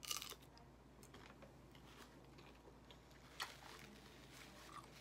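A tortilla chip crunching as it is bitten at the start, then quiet chewing with scattered small clicks and one sharper click about three and a half seconds in.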